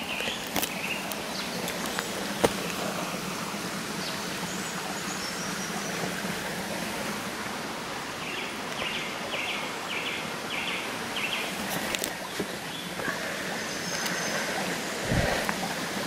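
A small woodland brook babbling steadily, with birds singing over it; about halfway through, a bird gives a quick run of short repeated notes.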